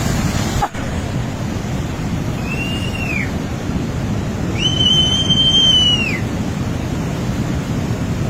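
Rushing floodwater making a steady, loud roar. Two high whistles sound over it, a short one about two seconds in and a longer one lasting about a second and a half midway through.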